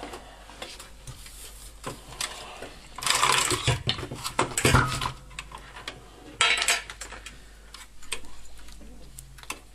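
Irregular clatter and knocks of tools being handled: multimeter test leads put down and a soldering iron picked up among the wiring of a plastic heater casing. The loudest clatter comes about 3 to 5 seconds in, with another short burst about 6.5 seconds in.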